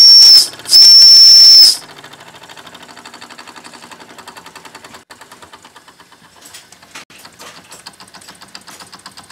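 Wilesco D6 model steam engine's boiler whistle blowing two high, steady blasts, the second about a second long. The engine then runs on with its single-acting oscillating cylinder chuffing in a fast, even rhythm, low on steam pressure after the whistle.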